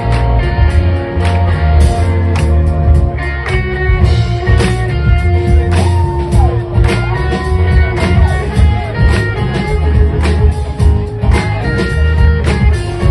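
A rock band playing: electric guitar over bass and a steady drum beat, with some bent guitar notes in the middle.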